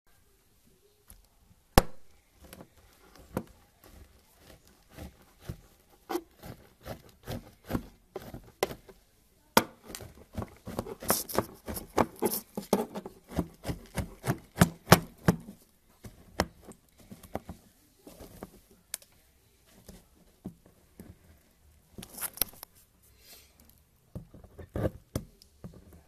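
Dry soap crunching and crackling as a hand presses into a tray of soap flakes and a knife cuts through a soap bar. It is heard as an irregular run of crisp clicks and crunches, thickest in the middle.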